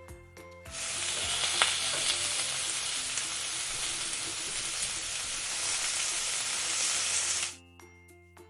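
A steady sizzling hiss that starts shortly after the beginning and cuts off suddenly near the end, with one sharp click about a second and a half in. Quiet keyboard music plays before and after it.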